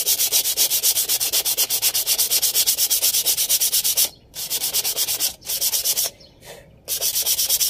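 Sandpaper rubbed quickly back and forth by hand across a car brake pad, a dry rasping scrape of several short strokes a second. It stops briefly twice, then pauses for about a second near the end before a last run of strokes.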